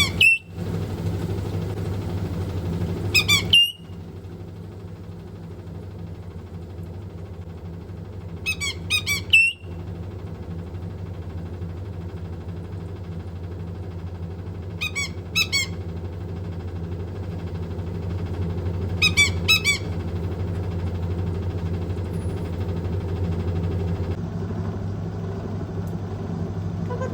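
White-bellied caique giving short bursts of rapid, high-pitched squeaky calls, about five times, over the steady low hum of a running washing machine.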